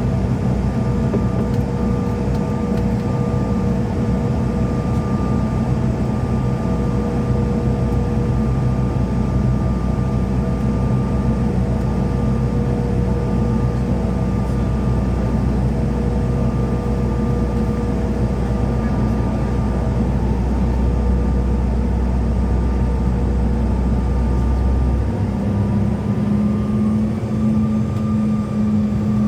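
Inside the cabin of a taxiing CRJ-700: the steady drone of its rear-mounted General Electric CF34 jet engines at taxi power, mixed with cabin air noise and a few steady whines. About 25 seconds in the low rumble drops away and a steadier, higher hum takes over.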